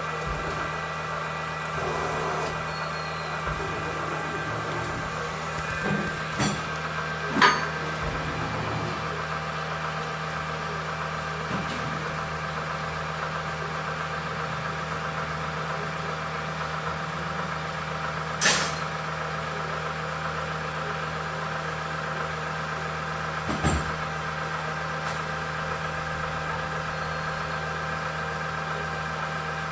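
Chevalier FCL-1840D lathe running with a steady motor and drive hum carrying a fixed whine. A few sharp clicks or knocks cut through it, the loudest about seven and eighteen seconds in.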